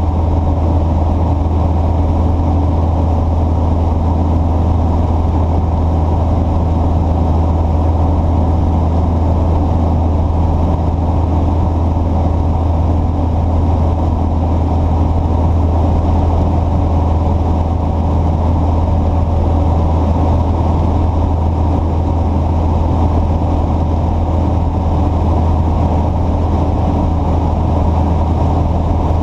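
A steady, low engine drone that does not change.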